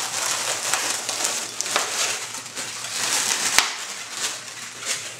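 Latex modelling balloons squeaking and rubbing against each other as they are twisted and wrapped, with a sharp click about three and a half seconds in.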